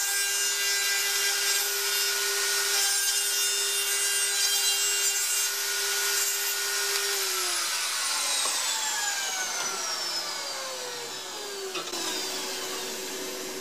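Plunge router running at full speed as its bit cuts dovetail pins in wood stock, guided along a template: a steady whine mixed with cutting noise. About halfway through it is switched off, and the whine falls steadily in pitch as the motor spins down. The router is set down on the bench with a knock near the end.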